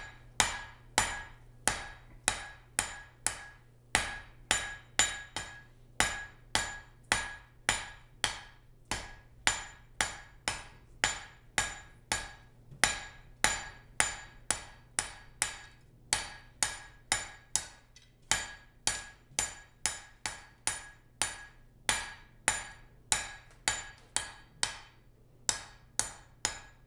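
Blacksmith's hammer striking hot steel on an anvil, about two blows a second, each with a bright ring: a forge weld being hammered out and cleaned up at welding heat.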